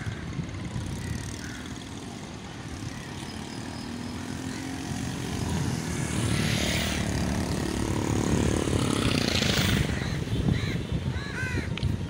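A flock of pigeons taking off together, a wash of flapping wings that swells about six seconds in and again near ten seconds, over a steady low rumble. Near the end a crow caws several times.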